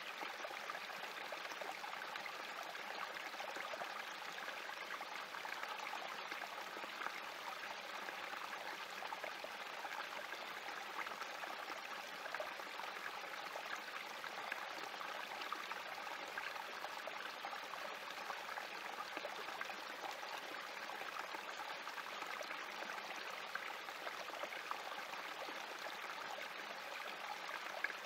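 Small spring creek flowing steadily over rocks, trickling and splashing down a shallow cascade.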